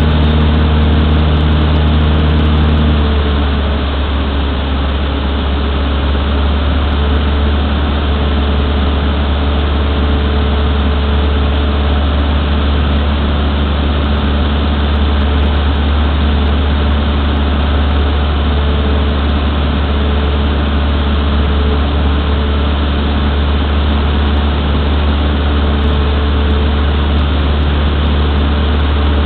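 Cessna 152's four-cylinder Lycoming O-235 engine and propeller droning steadily, heard inside the small cabin in flight. The drone gets a little quieter about three seconds in, then holds steady.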